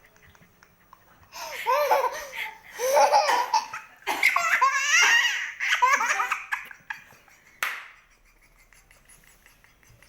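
A baby laughing hysterically in several long bursts, starting about a second in, followed by a short sharp noisy burst a few seconds before the end.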